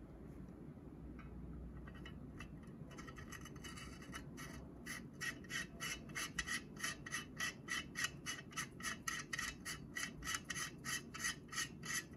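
Gloved hand rubbing and working a filter into its slot in a filter wheel carousel: a few faint scrapes, then from about four or five seconds in a steady run of short rubbing strokes, about three a second.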